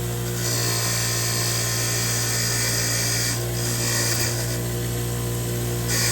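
A small power tool's motor runs steadily while a brake caliper slider bolt is pressed to it again and again, with a hiss each time, to clean off grease that has hardened like glue. The first long pass starts about half a second in; there are shorter passes near the middle and again near the end.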